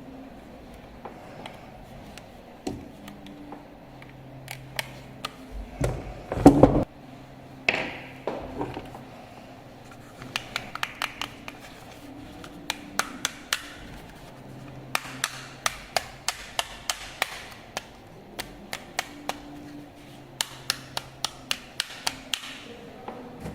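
A series of sharp, irregular clicks and knocks, some in quick runs, with one heavy thump about six seconds in, over a faint hum that starts and stops several times.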